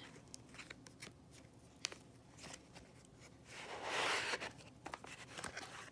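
Cardboard slide-out gift box and its ribbon being handled: light rustles and taps as the ribbon comes off, then a longer rustling slide about four seconds in as the box is opened.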